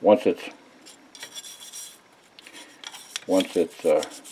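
Small brush scrubbing a steel gun part wet with mineral spirits, a run of quick scratchy strokes as it loosens dirt and surface rust. Short bits of speech come right at the start and again about three seconds in.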